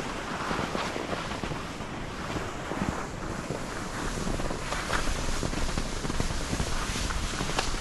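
Skis running downhill over snow, a steady rushing hiss mixed with wind buffeting the camera microphone, with a few short sharper scrapes.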